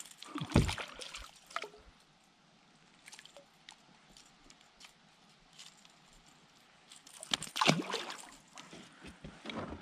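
A small hooked northern pike splashing at the water's surface beside a kayak, one loud splash near the end. A sharp knock about half a second in.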